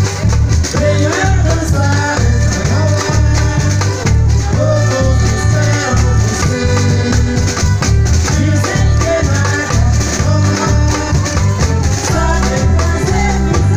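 Live Terno de Reis music played for dancers: a steady drum beat with shakers and rattles running through it and voices singing the melody over it.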